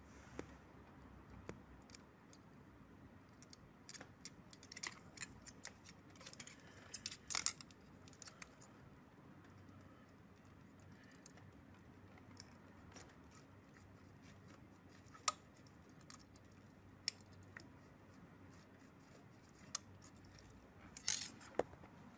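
Steel feeler gauge blade sliding in and out of a valve clearance gap on a Honda CBR250R cylinder head, checking the clearance with go and not-go blades: faint metallic scrapes and small clicks, scattered through, with a busy cluster about seven seconds in and a few sharp ticks near the end.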